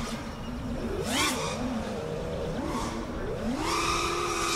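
FPV quadcopter's brushless motors and propellers whining, the pitch sweeping up and down with the throttle: a quick burst about a second in, then a climb about three and a half seconds in that is held high until near the end.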